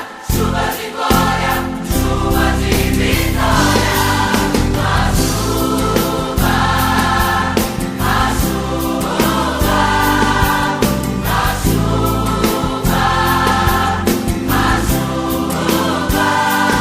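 Brazilian gospel song backing track: a full band with a steady beat, under sung vocal lines that sound like a choir.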